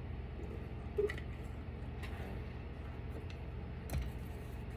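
A few light clicks and knocks of parts being handled while a battery backup unit is taken apart, the most distinct about a second in and near four seconds, over a steady low hum.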